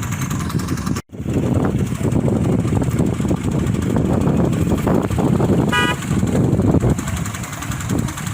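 Tractor driving a straw chopper machine, a dense, steady mechanical din. It drops out for an instant about a second in, and a short horn toot sounds about six seconds in.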